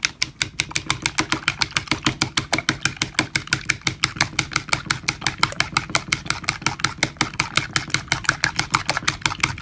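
Raw eggs being beaten in a bowl with a plastic utensil: quick, even clicking of the utensil against the bowl, about seven strokes a second. A steady low hum runs underneath.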